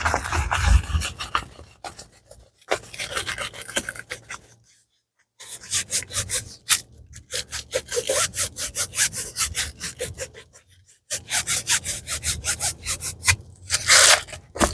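Quick rubbing and scraping strokes of packaging being handled and opened, several a second, in bursts with short pauses, and a brief louder rustle near the end.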